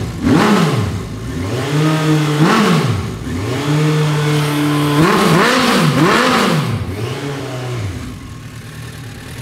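1986 Suzuki GSX-R 1100's air/oil-cooled inline-four, breathing through pod filters and a Kerker four-into-one exhaust, revved with a run of quick throttle blips and two brief holds at raised revs, then easing back toward idle near the end. The engine is crisp and responsive on the throttle, which the owner credits to a micro-drilled pilot jet, and the top end sounds tight.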